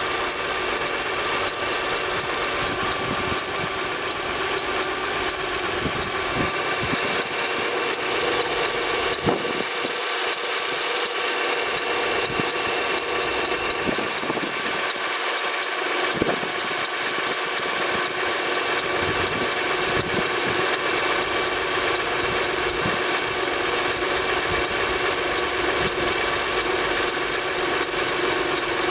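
Honda Pilot's V6 engine running cold with a steady mechanical knocking clatter, a noise that disappears once the engine is warm.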